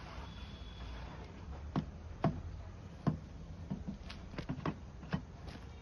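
Scattered light taps and knocks, about eight over a few seconds, as a snake-handling stick prods at the ground and a plastic jerry can, over a low steady hum.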